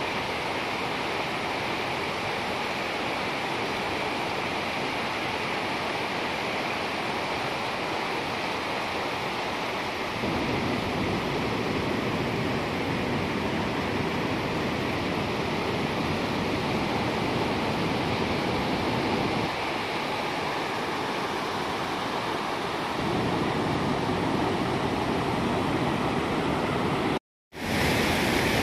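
Floodwater pouring over a concrete dam spillway and rushing over rocks below it: a steady rush of water that grows fuller and louder for stretches. The sound drops out for a split second near the end.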